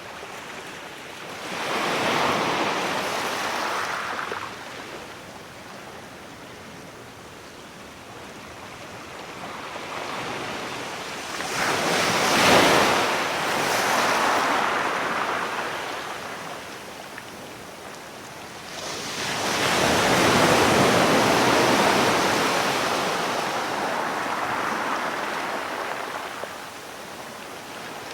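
Sea waves breaking and washing up on the shore in three surges, each swelling and fading, the loudest about twelve seconds in and the last a long wash near the end.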